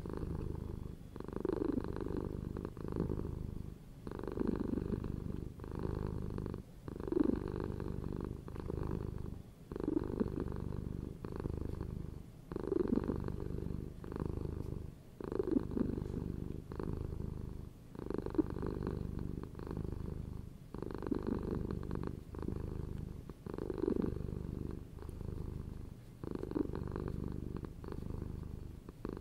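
Domestic cat purring close up: a continuous low rumble that comes in cycles of about three seconds, each broken by a short pause.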